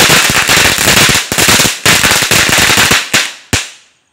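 Firecrackers going off in rapid succession, a dense volley of bangs that thins out about three seconds in to two last separate bangs.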